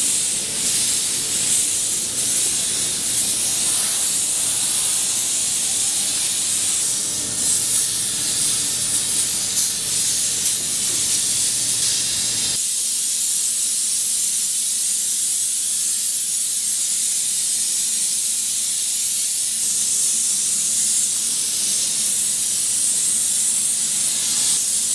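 Light N Easy steam cleaner jetting steam, a steady loud hiss. About halfway through, the lower, rougher part of the sound drops away and a thinner hiss goes on.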